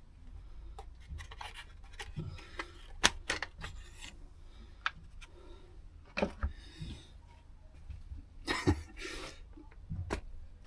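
Irregular clicks, taps and scraping of hand tools and metal parts on a Stihl FS160 brushcutter being stripped down, with a louder scrape a little before the end, as the spark plug comes out.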